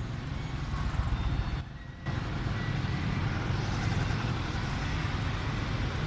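Steady low rumble of road traffic, with a brief lull about one and a half seconds in and a faint short high beep just after two seconds.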